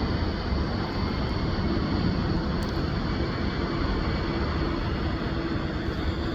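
Jet airliner engines running, a loud steady rush of noise with a faint steady hum underneath.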